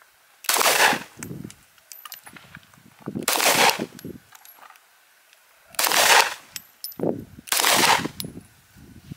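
Firearm shots at a shooting range, heard as four loud blasts spaced about two and a half seconds apart.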